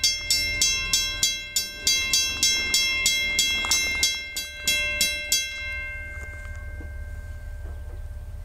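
Railroad grade-crossing warning bell ringing at about three strikes a second, then falling silent about five and a half seconds in, typical of a crossing bell that stops once the gates are down.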